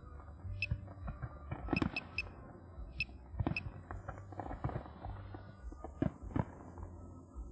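Fireworks bursting in an irregular series of sharp bangs and cracks, some close together, over the show's accompanying music.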